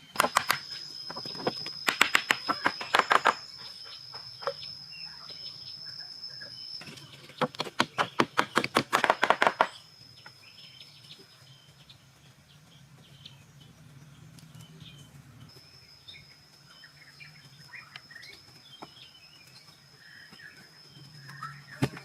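Two runs of rapid sharp taps, each lasting two to three seconds, over a steady high-pitched insect drone that drops out midway and returns near the end.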